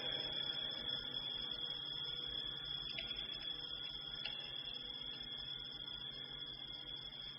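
A steady high-pitched tone over a faint low murmur that slowly fades.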